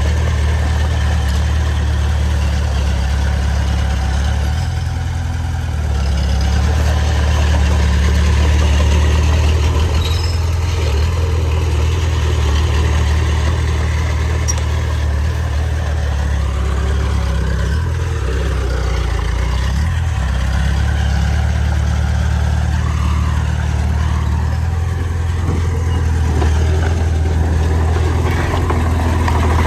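Heavy diesel engine of earthmoving machinery running steadily with a deep low drone, its load shifting slightly a few times.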